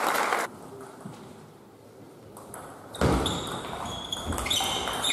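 Sports hall during a table tennis match: a burst of loud noise stops about half a second in, and after a quiet spell a thud about three seconds in is followed by several short, high-pitched pings and squeaks.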